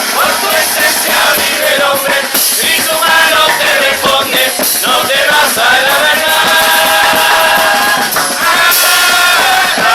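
Murga chorus singing in several voices, holding long notes in the middle and near the end, over drums and cymbals.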